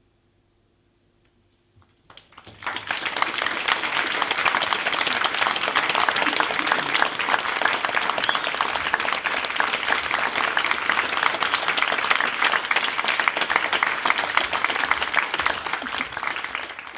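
Audience applauding, starting suddenly about two seconds in after near silence and keeping up steadily, fading away only at the very end.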